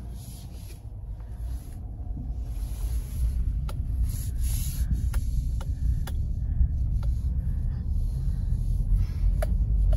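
Chevrolet Silverado pickup driving, heard from inside the cab: a low engine and road rumble that grows louder over the first few seconds as the truck gets under way. A few short clicks or knocks come now and then.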